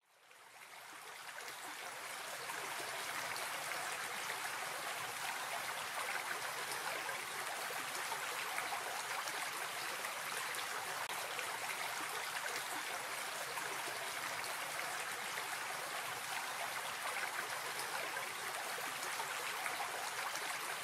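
A shallow stream running over rocks: a steady rush of water that fades in over the first two seconds.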